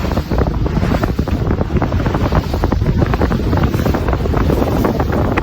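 Strong wind buffeting the microphone in a continuous, irregular rumble, over the rush of water and waves.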